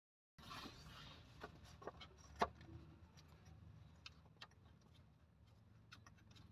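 Near silence: faint background hiss with scattered light clicks, one sharper click about two and a half seconds in.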